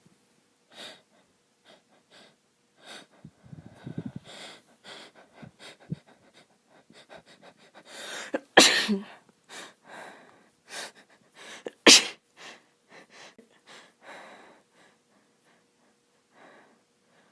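A woman sneezing: short breaths and catches as the tickle builds, then two sneezes about three seconds apart, with more quick breaths between and after. The sneezes come from a nose made itchy by seasonal allergies.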